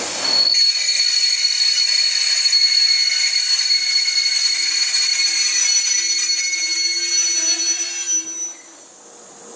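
Open box wagons of a slow freight train rolling past, their wheels giving a loud, high-pitched squeal made of several steady tones. The squeal drops away about eight and a half seconds in.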